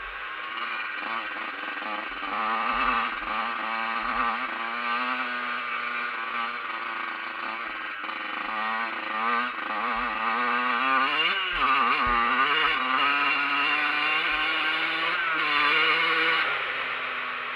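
Dirt bike engine heard from on board while riding, its pitch rising and falling with the throttle. A little past halfway the revs drop sharply and then climb again, and the engine runs harder and louder near the end.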